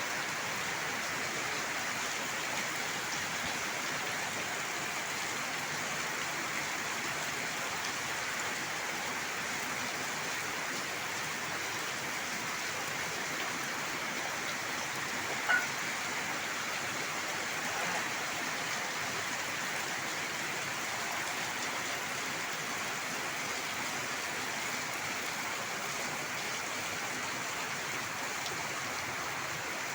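Steady rain falling, an even hiss that holds level throughout. About halfway through there is one brief, sharp little sound over it.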